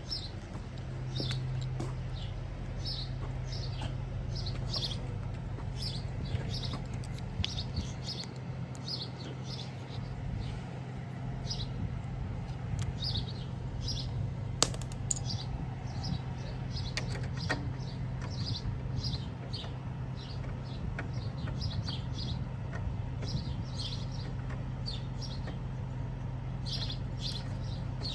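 Small birds chirping repeatedly over a steady low hum, with a few sharp clicks about halfway through.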